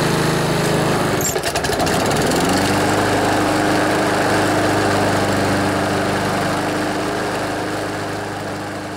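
Honda HRB215 lawnmower engine running with the throttle raised. About a second and a half in, its speed dips briefly, then climbs back up and holds steady, fading toward the end. It doesn't rev up all the way: the governor spring needs tightening.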